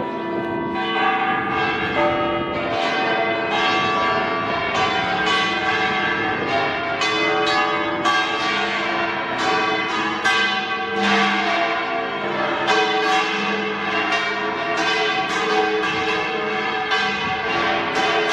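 Bells of Seville Cathedral's Giralda tower ringing together: many strokes in quick succession, each ringing on and overlapping the next.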